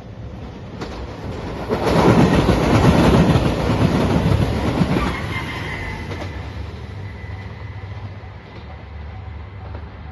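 A train passing at speed over a level crossing, its wheels clattering rapidly over the rail joints. It is loudest about two to five seconds in, then fades away.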